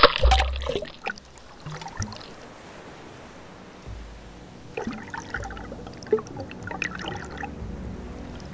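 Breaking surf heard from a camera at and just under the sea's surface: a loud splash as a wave washes over it, then muffled underwater sloshing with scattered bubbly crackles.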